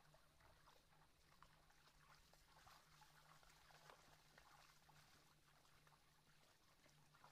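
Near silence: faint scattered crackles over a low steady hum.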